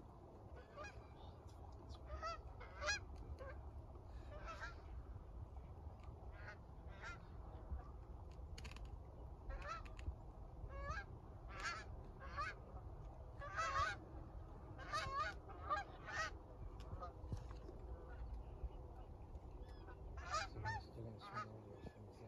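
Canada geese honking: many short, separate honks scattered throughout, coming thickest in the middle, over a low steady wind rumble.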